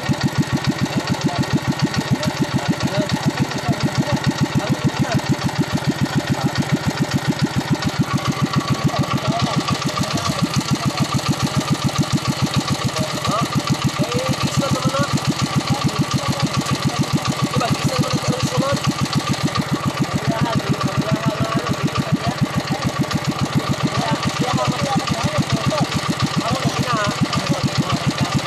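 Honda single-cylinder four-stroke stationary engine running at a steady speed, its even beat of firing pulses unchanging throughout.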